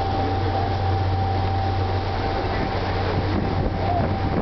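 Tour boat's engine running at steady cruise: a constant low drone with a thin steady whine above it, over a wash of wind and water noise.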